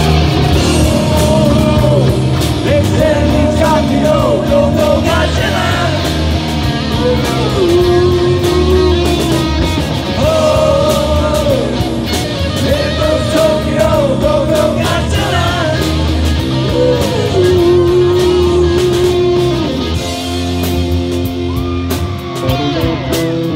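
Live rock band playing loudly: electric guitars and a drum kit, with a long-held, bending lead melody over them.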